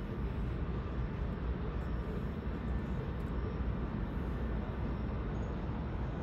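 New York & Atlantic Railway diesel freight locomotive running on the far track, a low, steady sound with no sharp events.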